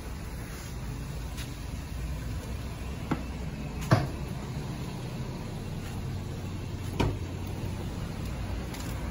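Jeep Grand Cherokee idling with a steady low hum, broken by three sharp knocks about three, four and seven seconds in, the last as the driver's door is opened.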